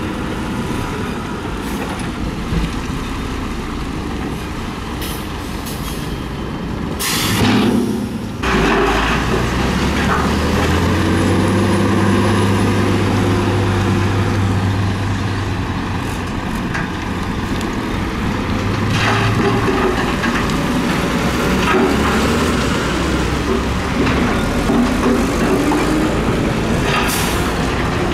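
Heavy dump truck's diesel engine running while it tips its load and pulls forward with the bed raised, rock spilling from the bed. A sharp air-brake hiss comes about seven seconds in, after which the engine works harder under load; a second short hiss comes near the end.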